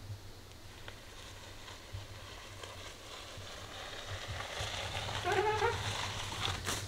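A mini mountain bike's tyres rolling and crunching over a dirt trail, growing louder as the bike comes closer, with a short wavering high-pitched sound about five seconds in.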